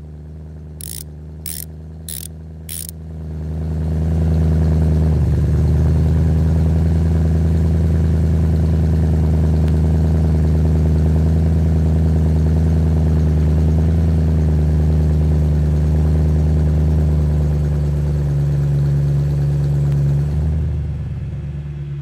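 BMW E90 M3's S65 V8 engine running at a raised, steady idle of about 1,000 rpm during its automatic cold-start warm-up program, with the catalytic converter being heated. The engine sound comes in about three seconds in after four short clicks, and eases off near the end as the cold-start program finishes.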